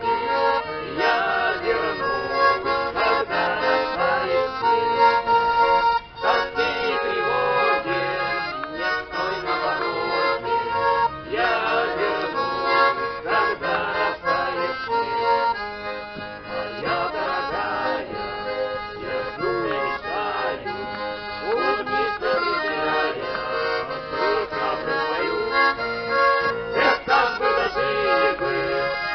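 Accordion playing a Cossack folk song.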